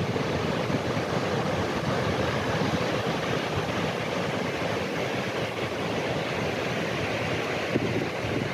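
Pacific surf breaking on a high tide: a steady rushing noise of waves with no let-up.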